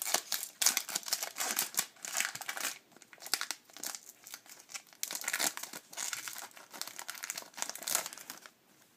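Hockey card pack wrappers crinkling and tearing as packs are ripped open and handled, in irregular bursts that die away about eight and a half seconds in.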